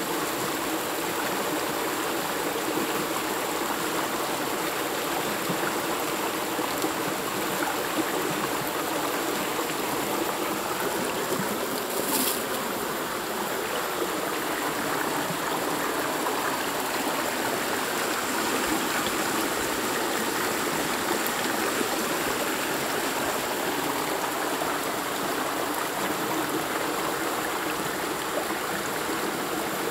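Shallow rocky stream rushing and splashing over stones in a steady wash of water noise.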